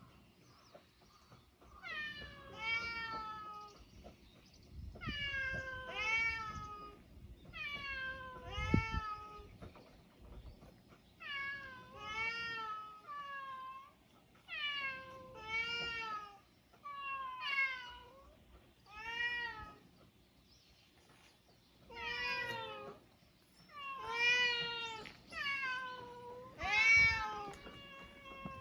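Mixed-breed island cats meowing over and over: drawn-out, rising-and-falling meows, often two or three in quick succession, a fresh group every two to three seconds with a short lull about two-thirds of the way through.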